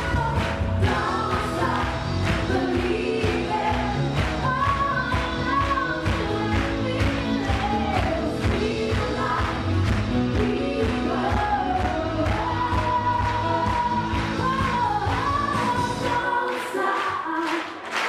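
Live pop cover band playing, with lead and backing vocals over drums, bass and guitars on a steady beat. The bass and drums drop out about a second and a half before the end.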